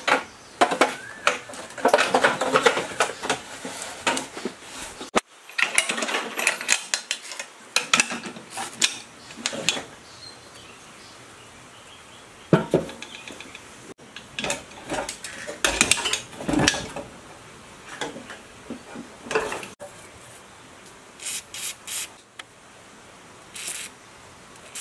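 Irregular clanks, knocks and rattles of the old sheet-metal housing and parts of a rusty soymilk maker as they are handled, lifted out and set down.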